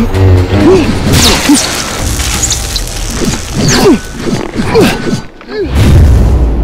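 Fight sound effects: a string of lightsaber-style swinging sweeps that bend up and down in pitch, with several sharp hits, over background music. A short lull comes about five seconds in.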